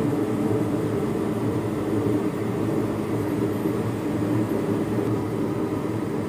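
An old car's carbureted engine running steadily at idle.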